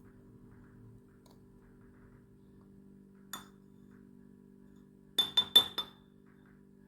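A spoon clinking against a small glass dish: one tap, then four quick taps close together about two seconds later, each with a short glassy ring.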